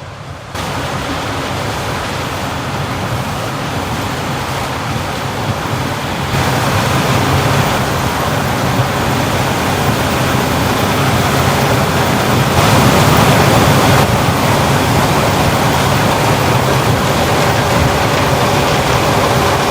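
Heavy harvesting machinery running in a corn field: a dense, steady mechanical noise that grows louder in steps about 6 and 13 seconds in.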